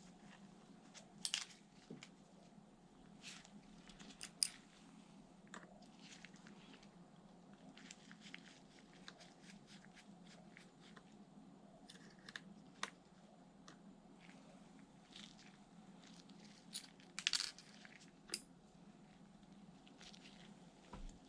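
Faint, scattered clicks and light taps of small hardware being handled, about a dozen spread irregularly over a low steady hum, as a laptop's internals are worked on during an SSD installation.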